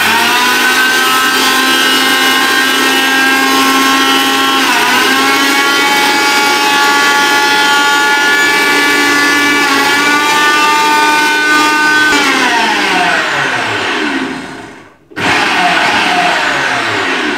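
Prestige Iris 750-watt mixer grinder's motor running at high speed, grinding whole coriander seeds to powder in the stainless steel dry-grinding jar. It is a steady whine that dips briefly in pitch twice as the load shifts, winds down once switched off about twelve seconds in, then starts again for a short second run near the end.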